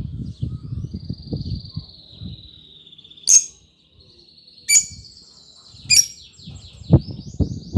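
Small cage bird singing a long, high warbling trill, cut through by three loud sharp chirps a little over a second apart. A low rumbling noise runs underneath, with a sharp thump near the end.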